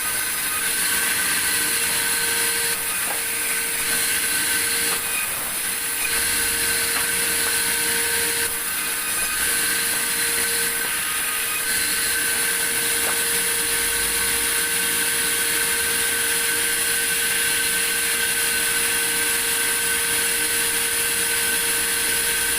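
Sawmill saw running steadily with a constant whine, cutting through a log, with a few brief dips in the sound in the first half.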